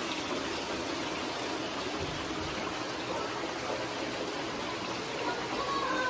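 Water running and trickling steadily through the channels and basins of a children's water play table.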